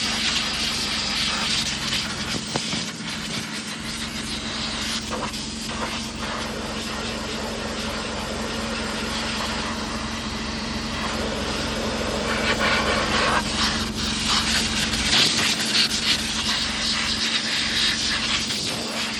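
Compressed-air blow gun hissing in long, uneven blasts as dust is blown out of a broom tractor's air-conditioning filters, loudest in the second half, over a steady low mechanical hum.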